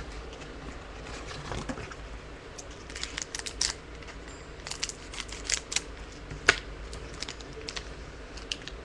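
Crinkling and rustling of a trading-card pack wrapper and cards being handled, in a run of short irregular clicks and rustles with one sharper click about two-thirds of the way through.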